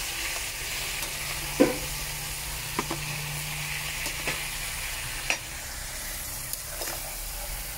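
Frog legs sizzling in a metal pot with a steady hiss while a metal ladle stirs them, knocking against the pot several times, loudest about one and a half seconds in.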